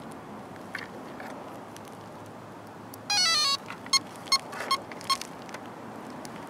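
An RC car's electronic speed controller powering up: a quick rising run of tones, then four short beeps about a third of a second apart, over a steady background hiss.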